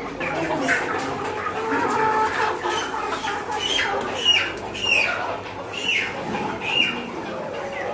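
Many caged chickens calling, with a run of short, high, falling calls about every half second in the second half.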